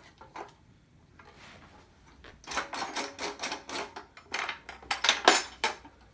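Rapid clicking and clattering of hard parts on a new gumball machine being handled, starting about two seconds in and ending just before the end, loudest near the end.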